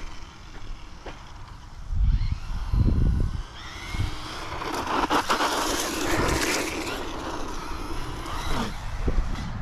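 Hosim X-07 1/10-scale electric RC monster truck driving, its motor whine rising and falling in pitch as it speeds up and slows, with tyres scraping over pavement and gravel, loudest about halfway through.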